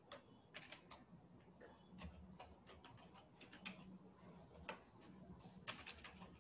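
Faint computer keyboard keystrokes: irregular clicks in small quick clusters, as text is typed.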